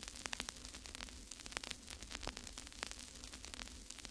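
Faint crackling static: irregular clicks and pops over a steady hiss and low hum.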